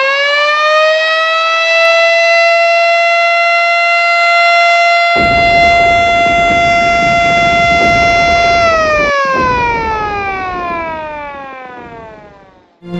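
Civil-defence siren sounding the independence-commemoration signal: one steady, loud wail that, about nine seconds in, falls in pitch and winds down, fading out near the end. A rough low rushing noise joins about five seconds in.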